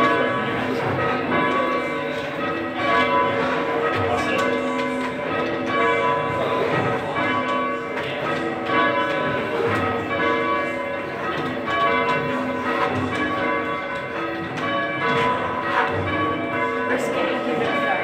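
Three church bells rung full circle on ropes, striking one after another in a steady repeating sequence with their tones hanging on between strokes. They are heard from the ringing chamber beneath them.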